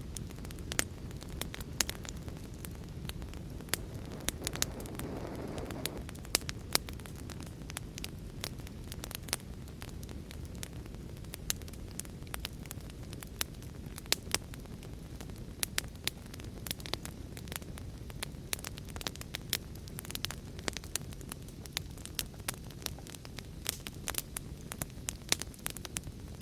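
Wood fire burning, with frequent sharp, irregular crackles and pops over a steady low rumble of flame, and a soft hiss about five seconds in.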